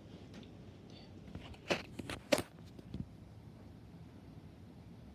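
Handling noise from a camcorder being set down: a short run of sharp knocks and clicks, the two loudest about two seconds in.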